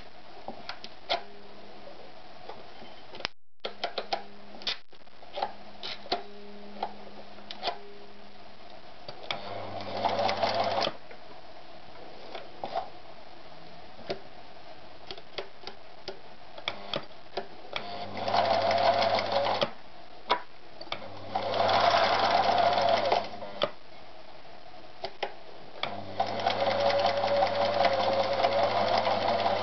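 Privileg TopStar 796 Super Automatic sewing machine stitching through denim in four short runs, the last and longest near the end. Scattered clicks and knocks come between the runs.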